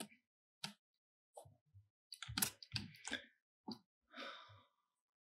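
Faint scattered clicks and soft mouth sounds, with a short breathy sigh about four seconds in.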